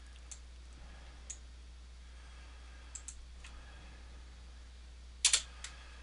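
Scattered clicks of a computer mouse and keyboard, with a louder double click about five seconds in.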